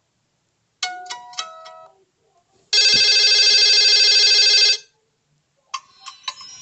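Nokia 300 phone ringtones. A short melody of a few stepping notes ends, and then comes a loud, rapidly pulsing ring lasting about two seconds. Near the end another ringtone's tune begins.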